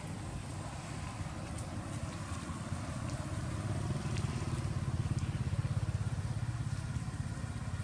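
A motor engine running with a low, fast-pulsing rumble that grows louder through the middle.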